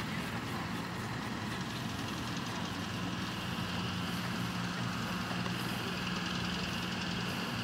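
A steady engine hum, a constant low drone that settles into one held tone about three seconds in, over a background hiss.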